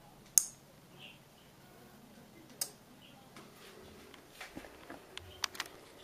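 Two-channel relay module switching the room light, a sharp click about half a second in and another about two seconds later, then a run of fainter small clicks and knocks near the end.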